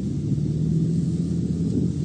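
A motor vehicle's engine running: a low, steady rumble with a constant hum.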